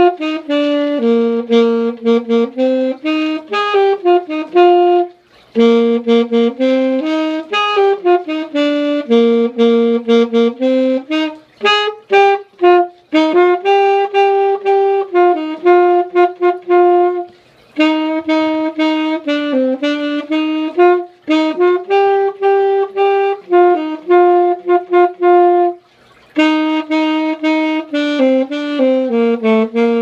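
Alto saxophone playing a melody unaccompanied, in phrases broken by short breath pauses; it stops at the very end.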